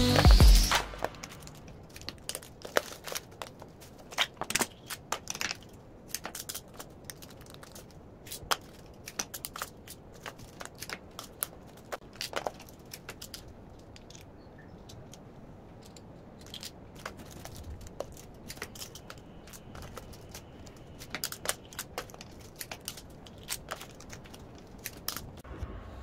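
Small plastic packets of Swarovski crystal rhinestones crinkling in the hands, and the crystals clicking and tapping into a clear plastic compartment tray: scattered sharp clicks and rustles, sometimes several in quick succession.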